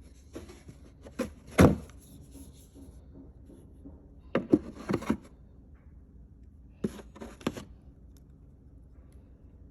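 Skincare packaging and containers being handled: a scattering of sharp knocks and clicks, the loudest about one and a half seconds in, a cluster around five seconds and two more near seven and a half seconds.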